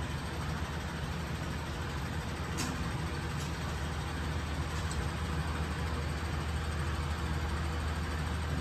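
Steady low hum of a room air conditioner running, with a couple of faint light clicks.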